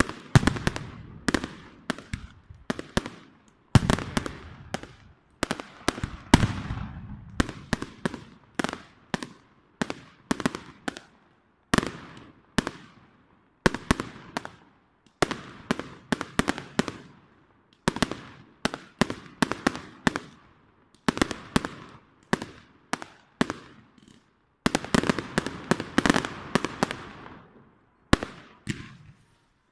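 Fireworks display: aerial shells bursting in a rapid, uneven string of sharp bangs, many close together in quick clusters, some trailing off in an echo.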